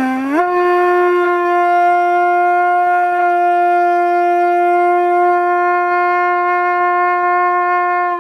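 One long note blown on a horn-like wind instrument. It slides up in pitch over the first half second, is held steady for about eight seconds, and then stops abruptly.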